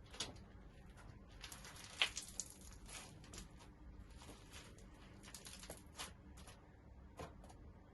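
Crunchy slime being squeezed and pressed by hand, giving faint, irregular crackles and small pops, the sharpest about two seconds in.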